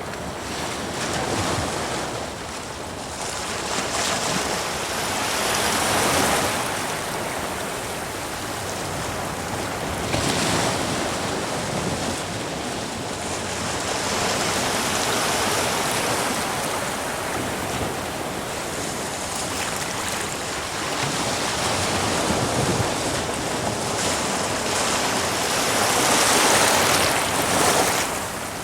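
Sea waves surging and breaking against rocks, a continuous rushing wash of surf and foam that swells and ebbs in several surges, the loudest near the end.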